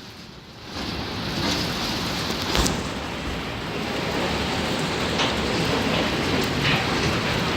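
Freight train rolling past on the rails: a dense, steady rumbling roar with a few sharp clanks from the wheels and wagons. The roar swells in about a second in, after a brief quieter moment.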